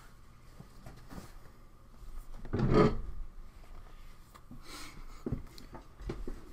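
A person moving a desk chair and sitting down: one loud rustling scrape a little under three seconds in, then a few light knocks.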